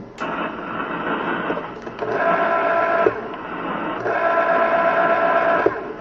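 Antenna rotor turning a Yagi antenna in short runs: a steady whining hum that comes on twice, about two seconds in and again at four seconds, over a constant hiss.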